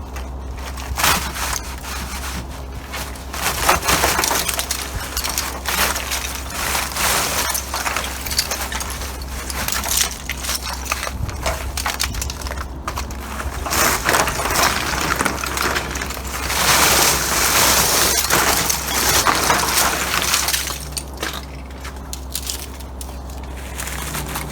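Irregular crunching and scraping of ice and snow, with a longer, louder stretch of crunching about two-thirds of the way through.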